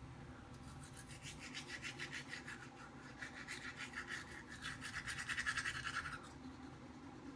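Teeth being brushed with a manual toothbrush: a quick back-and-forth scrubbing of bristles on teeth, about five or six strokes a second. It starts about half a second in and stops about six seconds in.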